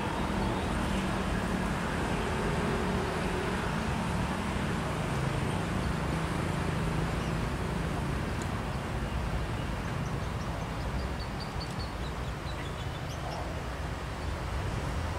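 Outdoor street ambience with a steady low rumble of traffic. About ten seconds in, a bird calls with a quick series of short high notes, each a little lower than the last.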